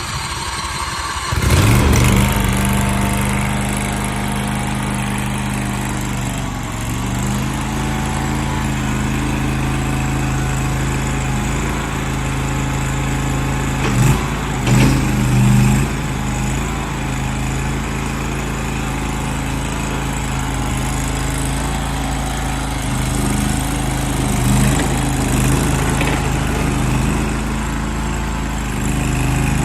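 A mini skid steer's 23 HP V-twin engine turns over on the starter and catches about a second and a half in. It then runs steadily, with a few brief swells in engine speed near the middle.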